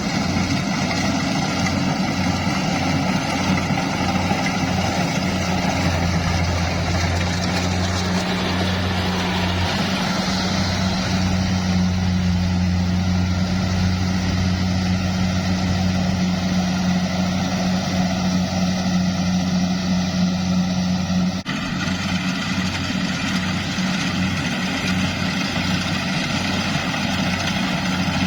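Engine of heavy farm machinery running steadily with a low hum, with a brief sudden drop in level about three-quarters of the way through, after which it carries on as before.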